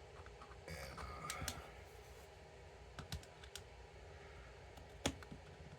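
A few light, sharp clicks and taps, spread unevenly with the clearest near the end, from small hard objects being handled.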